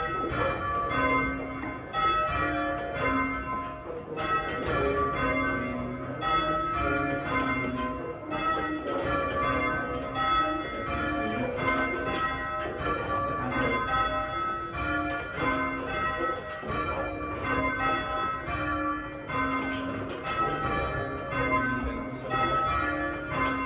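A ring of church bells rung full circle by ringers with ropes, from the small treble down to a tenor of about half a ton. The bells strike one after another in a steady, repeating sequence, each one ringing on under the next.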